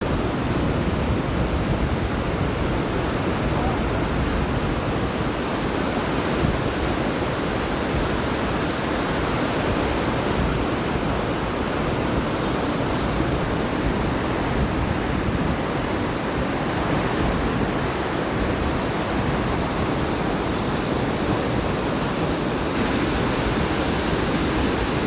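Waterfall: a steady, unbroken rush of falling water, its tone brightening slightly near the end.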